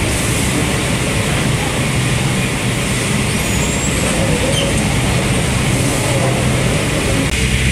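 Steady loud industrial machinery noise with a low hum, as a forklift drives up and manoeuvres, with faint whining glides from its motor and hydraulics.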